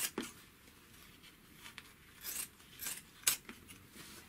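A few scattered light clicks and short rustles of thick denim being handled at a Gemsy overlocker. The machine does not run steadily.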